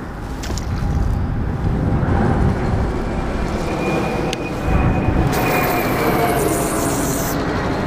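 Steady low rumble of a small boat's outboard motor running, with wind and water noise; a faint thin whine comes in a few seconds in and fades near the end.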